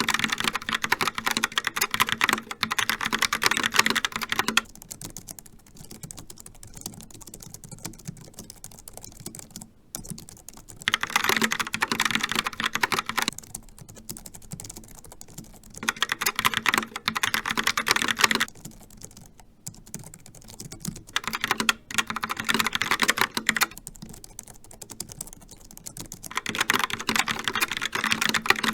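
Typing on computer keyboards, the Logitech Pop Keys mechanical keyboard and the Logitech MX Keys scissor-switch keyboard. Stretches of loud, dense key clacking of about two to five seconds alternate with stretches of quieter key taps, about five loud stretches in all.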